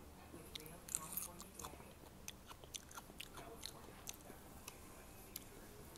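A person chewing food, with a run of short, irregular crunchy clicks.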